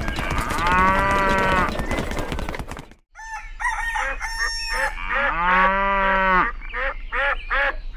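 Farmyard animal sounds: chickens clucking and a cow mooing once, long and low, around the middle. A drawn-out pitched call fills the opening seconds and cuts off about three seconds in, just before the animal sounds start.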